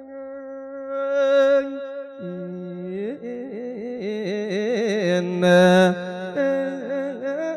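A monk's voice chanting an Isan lae sermon: long, drawn-out notes that waver and slide, sung on vowels without clear words. The pitch drops to a lower register about two seconds in.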